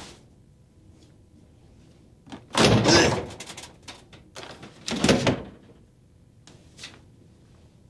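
A door thudding twice, loudly, about two seconds apart, with a few fainter knocks around the two thuds.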